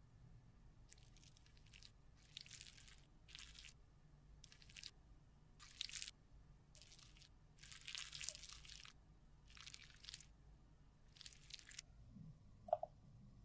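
Metal spatula cutting and scraping through a solid bar of makeup on a metal plate: soft scratchy crunches, about nine separate strokes. Near the end, a brief faint beep.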